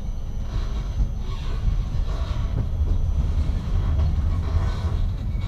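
Steady low rumble of a car driving in city traffic: engine and tyre noise on the road surface.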